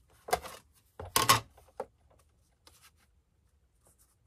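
Plastic cutting plate of a manual die-cutting machine being flipped over and set back down: a few short knocks and clatters, the loudest about a second in, then a couple of faint ticks.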